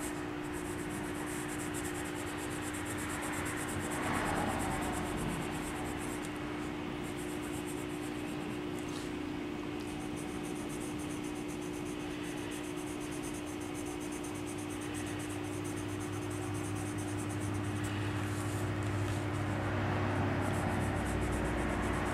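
Colored pencil stroking and rubbing on paper in soft scratchy shading strokes, over a steady low hum.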